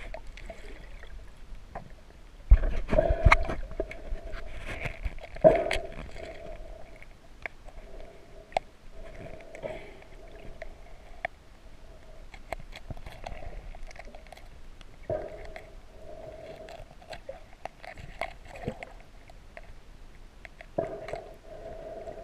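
Muffled underwater clicks and knocks as hands and a small pocket knife work at a rapa whelk shell, with water movement around the microphone. Several louder thumps come about three and five and a half seconds in.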